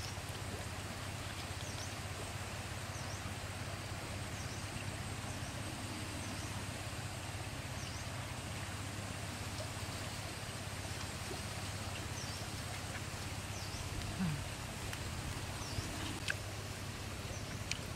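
Outdoor ambience: a steady low rumble with short, high chirps from a small bird or insect repeating every second or two, and a few faint clicks near the end.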